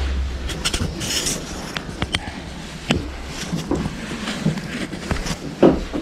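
Crowbar prying and knocking at wooden floorboards and joists: an irregular run of sharp knocks and wood clatter, the loudest knock near the end.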